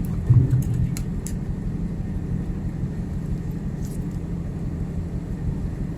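Steady low drone of a ship's machinery, with a short low thump about half a second in.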